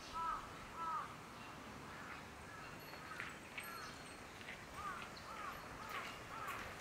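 Crows cawing: a run of short, arched caws about half a second apart at the start, then more caws through the middle and later part.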